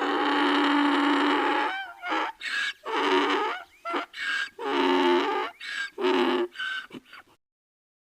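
Donkey braying: one long drawn-out call, then a rhythmic run of about five shorter hee-haw notes, cutting off abruptly about seven seconds in.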